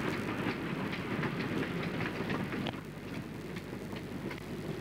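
Steam locomotive working out of sight, heard as a steady rough rushing noise with scattered sharp clicks, a little quieter after about three seconds.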